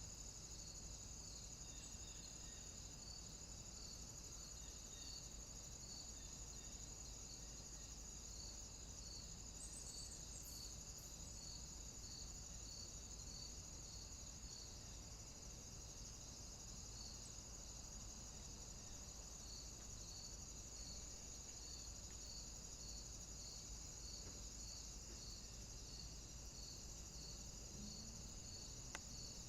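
Crickets chirping softly in a night-time nature ambience: a steady high trill, with evenly repeated chirps a little more than once a second.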